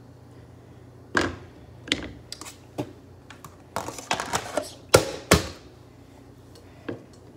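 Irregular taps, clicks and knocks of kitchen items and utensils being handled by a stovetop. The two loudest knocks come a little after five seconds in.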